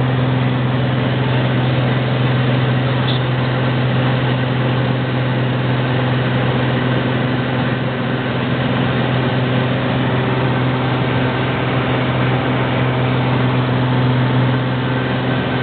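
Cessna Turbo 206's turbocharged six-cylinder piston engine and propeller running steadily in the climb after takeoff, heard from inside the cabin as a loud, even drone with a strong low hum.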